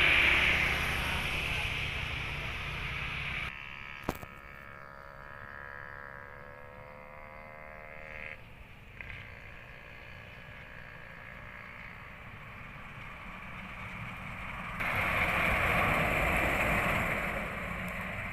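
A passing motorbike's engine fading over the first few seconds, then a Mitsubishi Canter dump truck's engine approaching with a steady pitched drone. The truck grows louder as it passes about fifteen seconds in.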